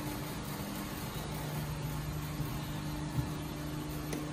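Screw-driven Aritco 7000 Flexi platform lift travelling down, its drive motor giving a steady low hum. There is a single small click about three seconds in.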